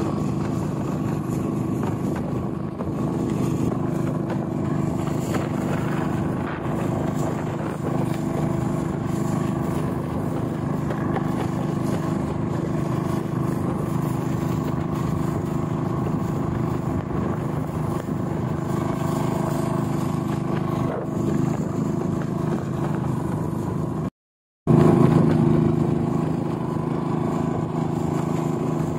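Motor bangka's engine running steadily at cruising speed, with wind and water rushing past the hull. The sound cuts out for half a second about five seconds before the end and comes back a little louder.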